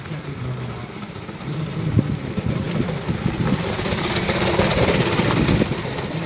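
Go-kart's small engine running as the kart drives up and passes close by, growing louder to a peak about two thirds of the way through, with its tyres crunching over gravel as it goes past.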